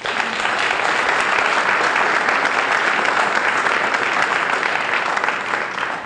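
Audience applauding: dense, steady clapping that fades near the end.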